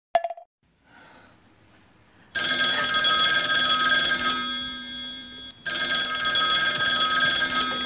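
Push-button desk telephone ringing. The bell starts about two and a half seconds in, breaks off briefly a little after five seconds, then rings on.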